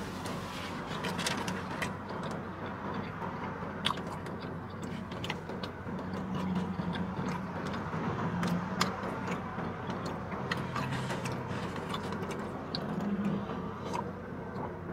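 Close-up biting and chewing of a crispy fried Haitian pâté kode (ham, egg and cheese filling), with many small crackles and clicks over a low steady hum.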